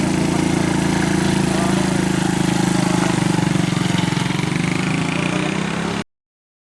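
A large engine running steadily at a constant speed with a fast, even pulse, ending abruptly about six seconds in.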